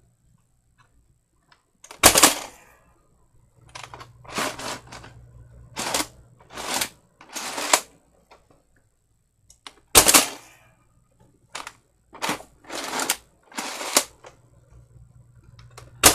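Nerf blaster being handled and worked: a series of sharp plastic clacks and shots, the two loudest about two seconds in and at ten seconds, with clusters of shorter clacks between them.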